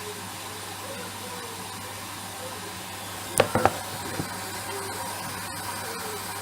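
Hoover washing machine running its rinse cycle with a steady hiss, and three sharp knocks close together about three and a half seconds in, followed by a softer one.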